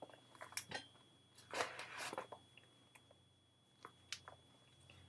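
Faint handling of a baseball glove's leather lace being drawn through a lacing hole with a threading tool: scattered light clicks and a brief rasp of lace sliding through the leather about a second and a half in.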